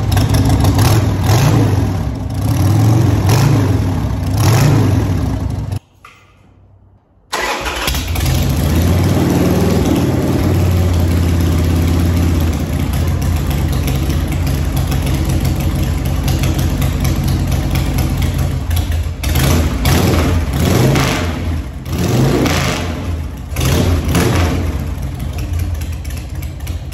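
Harley-Davidson Sportster 1200 V-twin running and revved several times through its stock exhaust, then, after a short gap, starting abruptly and running through straight 1¾-inch drag pipes, with a rev soon after starting and a run of quick throttle blips near the end.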